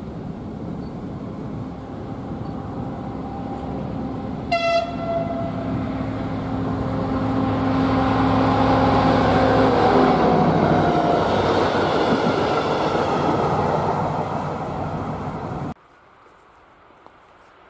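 DB Cargo class 294 diesel-hydraulic locomotive running under load as it hauls a freight train toward and past, with one short horn blast about four and a half seconds in. The sound grows to its loudest and drops in pitch as the locomotive passes, then cuts off suddenly about two seconds before the end, leaving a faint background.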